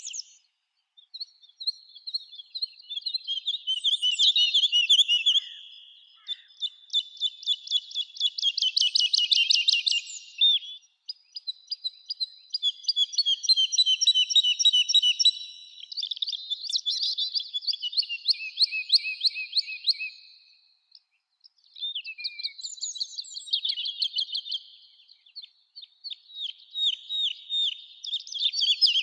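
A songbird singing long, rapid trilling and warbling phrases of a few seconds each, separated by short pauses.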